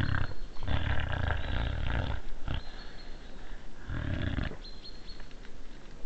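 European badger making odd, rough calls from inside its sett: a burst at the start, a longer one lasting about a second and a half, and a shorter one about four seconds in.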